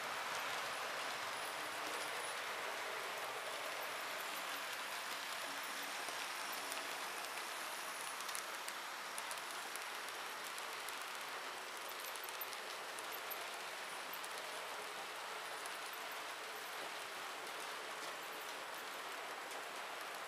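H0-scale model trains rolling around a layout: a steady hiss of wheels on the track with faint scattered clicking, slowly getting quieter.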